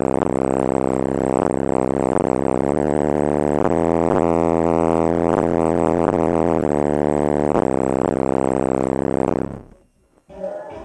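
Subwoofers in a transmission-line (T-line) enclosure playing a steady low bass test tone at high cone excursion, heard as a loud drone full of overtones. It cuts off suddenly about nine and a half seconds in.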